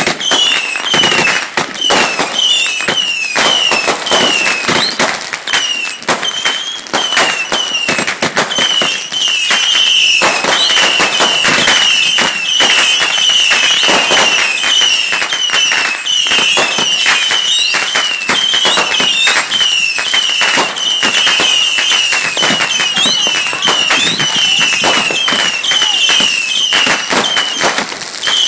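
Consumer fireworks going off non-stop: dense crackling and popping, with short high falling whistles repeating two or three times a second throughout.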